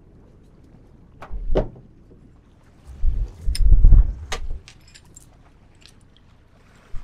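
A boat anchor and its chain being hauled aboard by hand, clinking and knocking against the boat. There is a short bout about a second and a half in, then a longer run of metallic clicks and heavy thuds from about three to four and a half seconds in.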